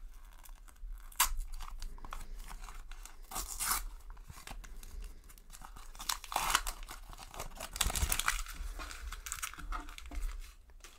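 Shiny plastic sticker packet torn open by hand, its wrapper crackling and crinkling as it is pulled apart. The crackles come in bursts, louder about a second in and again around six to eight seconds.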